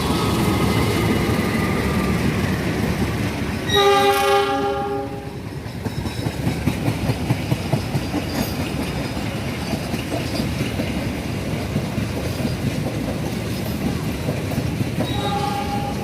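CC 206 diesel locomotive sounding its horn, a chord of several tones, in one blast of about a second and a half, over the steady rumble of the passing train. After the blast the wheels clack over the rail joints in a quick rhythm, and near the end the horn starts again.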